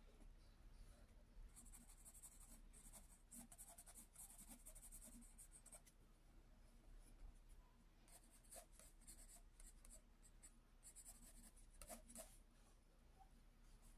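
Faint scratching of a graphite pencil shading on sketchbook paper: runs of quick back-and-forth strokes with short pauses between them.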